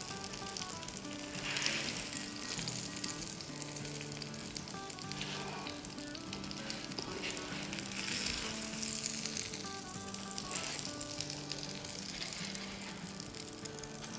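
Salmon fish cutlets sizzling and crackling in shallow oil in a frying pan as they are lifted out with a spatula. The sizzle swells several times.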